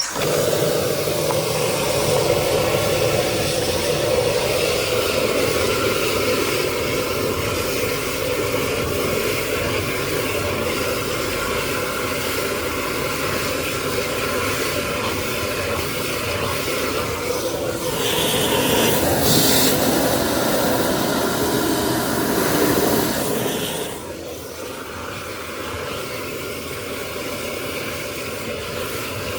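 Drain water jetter's engine-driven high-pressure pump running hard, with a steady hiss of high-pressure water. It starts suddenly and drops to a lower, steadier level a little past two-thirds of the way through.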